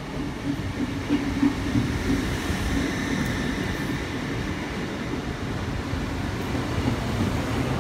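LNER Hitachi Azuma high-speed train drawing into the platform and slowing, its running noise swelling about a second in, with a steady low hum and a faint high whine through the middle.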